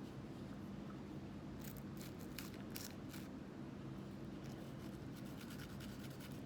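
Short, sharp scratchy strokes of a pistol being scrubbed during cleaning, in two runs of several strokes each, over a steady low hum.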